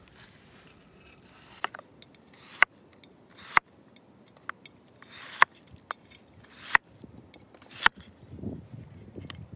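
Large kitchen knife slicing a peeled cucumber into rounds on a plastic cutting board: a short rasp as the blade goes through, then a sharp tap on the board, about eight cuts roughly a second apart.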